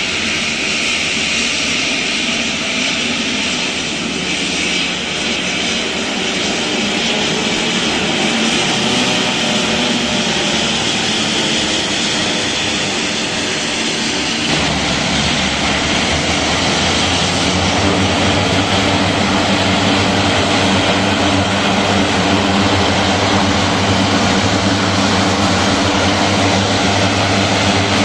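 Twin turboprop engines of a small commuter plane, a Let L-410, running on the ground with a steady high whine over the propeller noise. About halfway through the sound changes abruptly to another twin-turboprop running, with a stronger, steady low propeller hum.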